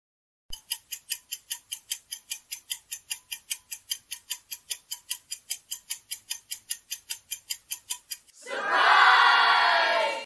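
Clock-ticking sound effect for a quiz countdown timer, an even run of about four to five ticks a second. Near the end comes a short burst of cheering voices as the answer is revealed.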